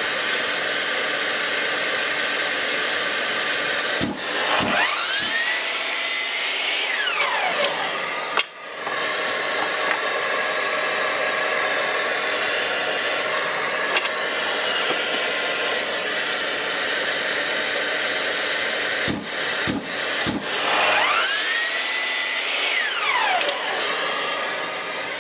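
A workshop dust extractor runs steadily. Twice, a Bosch mitre saw starts after a few clicks, its motor whining up to speed as the blade cuts through a wooden board, then winding down.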